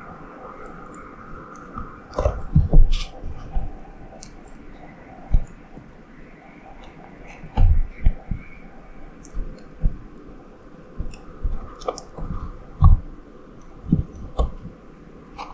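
Irregular soft thumps and clicks as an Australian green tree frog (White's tree frog) shifts and gulps down a lizard on a plastic surface, with the busiest clusters about two seconds in, around eight seconds in and near thirteen seconds.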